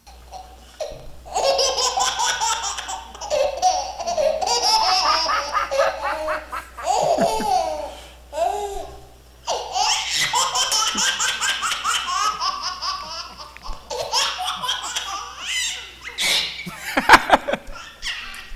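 Long bouts of high-pitched, breathless laughter in rapid repeated pulses for a puppet laughing act, broken by a short pause about eight seconds in.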